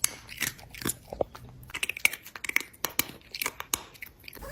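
Cat chewing and crunching its food: a quick, irregular run of crunches and clicks.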